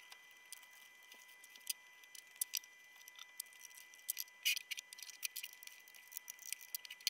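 Faint, irregular light clicks and taps from metal parts being handled: a steel framing square and the aluminium-extrusion CNC frame being checked and adjusted by hand. A faint steady high tone runs underneath.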